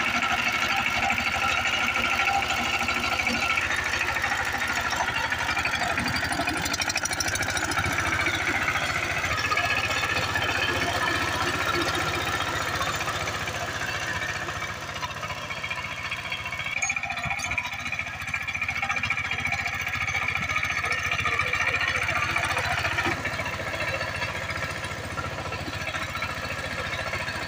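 Single-cylinder diesel engine of a walking tractor running with a fast knocking beat while its rotary tiller churns soil. It grows a little fainter in the second half as the machine works farther off.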